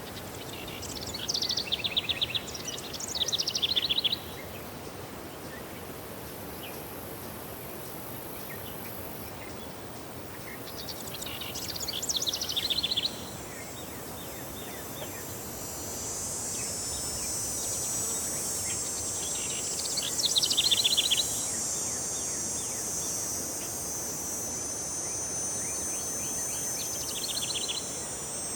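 A songbird sings short, rapid trilled phrases, repeated about every eight to nine seconds. From about halfway through, a steady high-pitched insect drone joins it.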